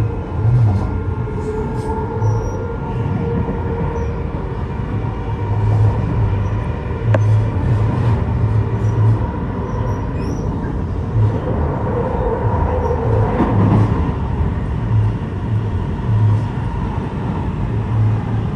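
Train running, with a steady low rumble and several whining tones that swell and bend around two thirds of the way through.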